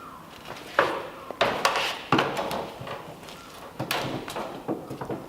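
Rummaging through workshop hardware for screws: a handful of separate sharp knocks and rattles, the loudest about two seconds in.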